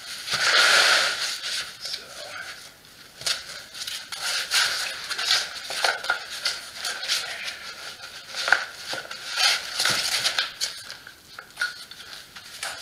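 Black foam packing layers being handled and lifted out of an e-bike shipping box: an irregular run of rustling, scraping and crackling as foam rubs against foam and cardboard, loudest about half a second in.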